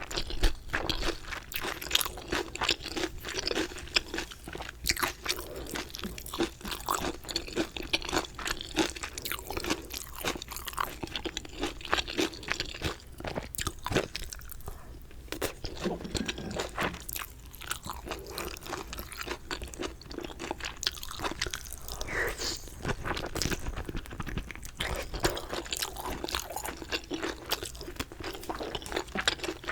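Close-miked crunching and chewing of crispy 갈비레오 fried chicken: dense, irregular crackles of the coating being bitten and chewed, easing off briefly about halfway through.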